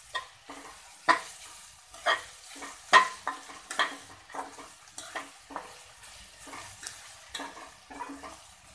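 Spatula scraping and stirring chopped onions and garlic frying in oil in a metal kadhai, in irregular strokes about once or twice a second over a faint sizzle.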